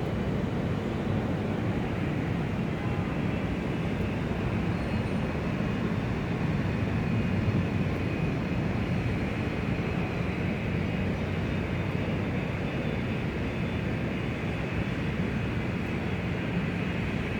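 Exterior ambience of a large airport: a steady, deep hum and rumble of jet aircraft engines, swelling slightly about halfway through.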